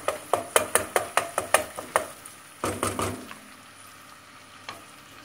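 Wooden spoon stirring tomato paste, onions and peppers in an enamel pot, knocking against the pot about four times a second for two seconds, then a short flurry of knocks and scraping. After that the paste fries with a faint sizzle, and there is one more knock near the end, as the paste is fried off to lose its raw smell.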